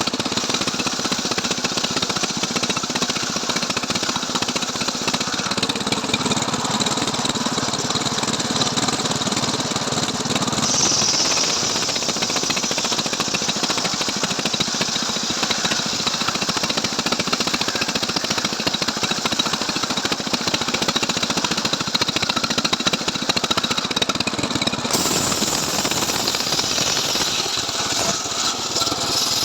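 Stihl MS 381 two-stroke chainsaw engine running steadily under load, its chain cutting along a log in a homemade chainsaw ripping rig; the tone shifts about ten seconds in and again near the end.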